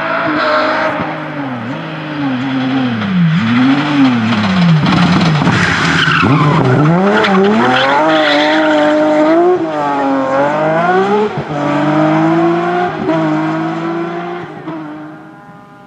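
BMW 3 Series coupe rally car at full stage pace: the engine pitch drops and rises several times as it brakes and downshifts into a corner, with tyre scrub around the middle as it slides through. It then accelerates away, the revs climbing in steps through several gear changes before the sound fades with distance.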